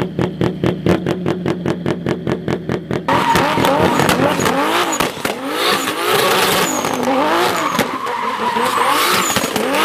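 Turbocharged BMW E30 2.5's straight-six engine running with an even pulsing beat. About three seconds in, the car goes into a drift: the engine revs rise and fall repeatedly over the tyres' squeal.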